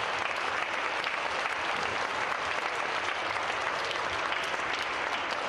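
Large audience of children and adults applauding, many hands clapping steadily.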